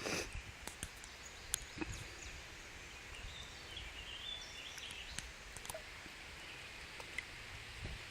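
Quiet outdoor background noise with faint high chirps and a few scattered small clicks and knocks.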